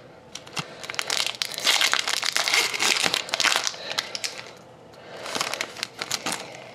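Foil wrapper of a hockey card pack crinkling and tearing as it is pulled open, lasting about three seconds, then a second, shorter burst of crinkling near the end as the cards come out.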